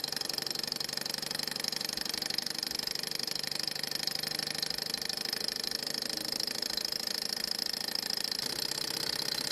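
Small metal hot-air Stirling engine running steadily, its flywheel driving a small generator that is loaded by an LED bulb; a fast, even mechanical rattle with a steady high whir, the engine held to this speed by the generator's load.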